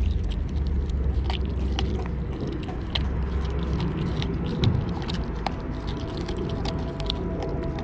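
A wolfdog puppy chewing a whole raw fish, with wet gnawing and a quick run of sharp crunching cracks as its teeth work through the bones. The crunching is loudest about two-thirds of the way through. A low rumble sits under the first couple of seconds.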